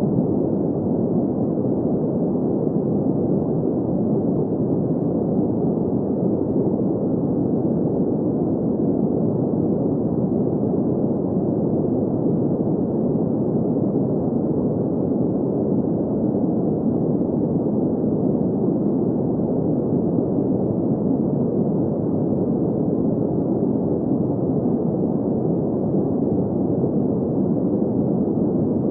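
Steady sleep noise: an even, unchanging hiss with its weight in the low and middle range and nothing in the treble, without tones or events.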